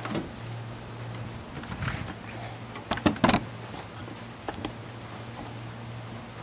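Brief handling clicks and knocks: a cluster of sharp ones about three seconds in and two lighter ticks over a second later, over a steady low hum.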